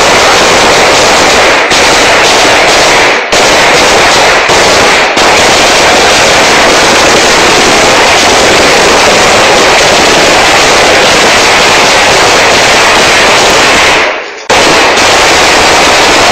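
Rapid bangs running together into one loud, continuous, distorted racket that overloads the recording, with short breaks about 3 seconds and 14 seconds in.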